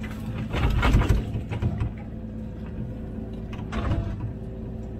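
Komatsu PC16 mini excavator's diesel engine running steadily under hydraulic load. About half a second in, a loud rush of soil falls from the bucket into the steel truck bed, and a shorter clatter of the bucket in the trench comes near four seconds in.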